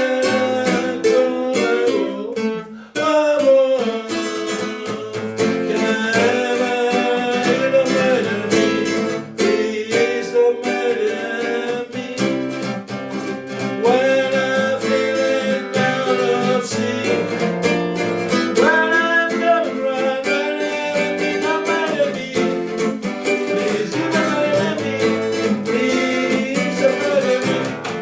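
Music: a song played on plucked acoustic strings, with a singing voice over it.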